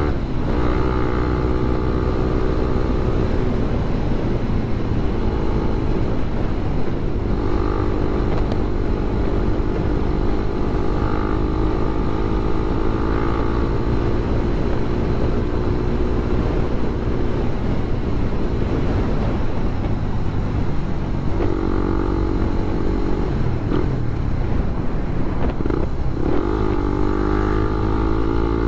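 Suzuki Raider 150 Fi's single-cylinder four-stroke engine running while riding, its pitch climbing and dropping several times with the throttle. A steady low rumble of wind and road noise runs under it.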